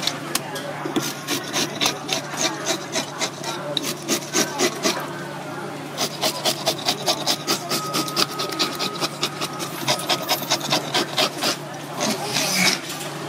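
Fish scaler scraping the scales off a whole spotted knifejaw on a wooden board, in rapid back-and-forth strokes of about five a second, with a short pause around five seconds in.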